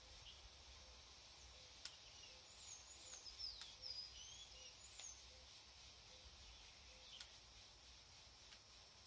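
Faint sharp snips of small pruning scissors cutting orange-bonsai twigs, several seconds apart, with a bird chirping faintly for a couple of seconds in the middle.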